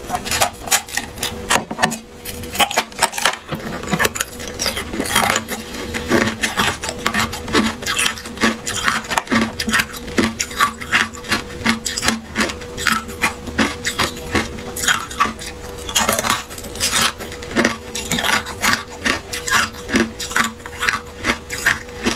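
Thin, clear ice being bitten and crunched close to the microphone: dense, irregular cracking and crackling, several sharp cracks a second.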